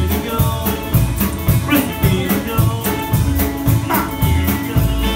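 Live rock 'n' roll band playing: upright double bass, drum kit with cymbals keeping a steady beat, and electric guitar.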